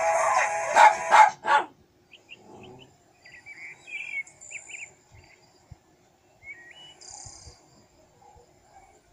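A song cuts off about a second and a half in, followed by faint, scattered short high-pitched chirps and squeaks.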